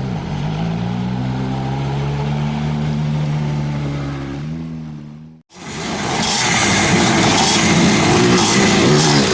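Motocross motorcycle engine running at a steady speed with small rises and dips in pitch. About five and a half seconds in it cuts off sharply, and a louder, rougher engine sound follows.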